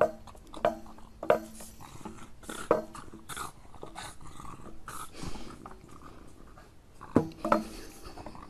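A long stick held in a small dog's mouth knocking against the uprights of a metal path gate as the dog tries to push through, several knocks in the first three seconds and two more near the end, with sounds from the dog between them.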